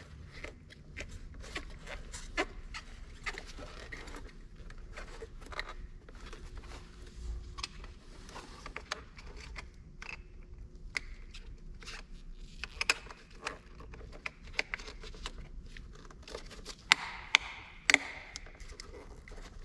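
Plastic overhead console and map light lenses being handled, with small scattered clicks and scrapes as the lenses are pushed into place. Three sharper snaps come close together near the end.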